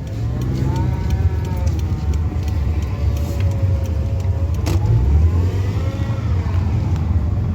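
A 2015 Subaru on the move, making a whining noise that rises and falls in pitch over a steady low rumble. There is one sharp click about two-thirds of the way through.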